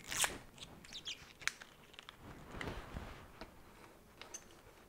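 Faint crinkling, scratching and small clicks of the plastic seal being peeled off the cap of a glass ramune Codd bottle.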